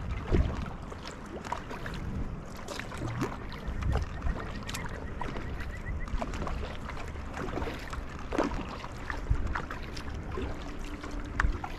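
Kayak paddling on calm water: paddle blades dipping, splashing and dripping, with occasional light knocks. A low wind rumble on the microphone runs underneath.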